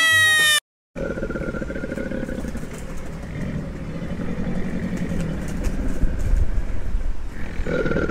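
A sheep's bleat, the loudest sound, ends abruptly within the first second. After a moment of silence comes a crocodile's low, rough, rapidly pulsing rumbling growl.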